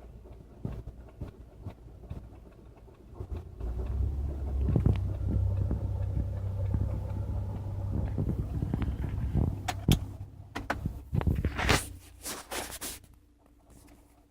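Irregular sharp clicks over a low rumble that swells about four seconds in and fades around eleven seconds, then a few loud noisy bursts before it goes quiet near the end.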